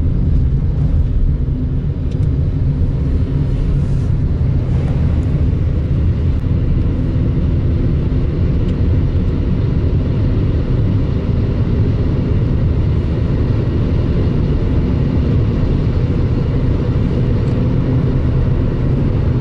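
Lada Granta's engine heard from inside the cabin, a steady drone as the revs climb to about 4,000 rpm. The Jatco JF414E four-speed automatic is held in third gear with overdrive switched off, so it does not shift up into fourth.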